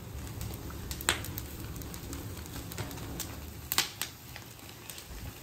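Charcoal fire crackling under skewered kebabs, a scatter of small ticks with two sharp pops, about a second in and near four seconds, over a steady low rumble.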